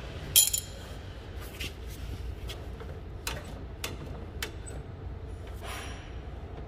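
Light metallic clinks and taps of tools and steel parts during work on a seized tractor brake: a sharp clink about half a second in, then about eight scattered lighter ones, over a low steady rumble.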